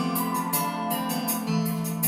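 Instrumental music with sustained chords and a steady beat.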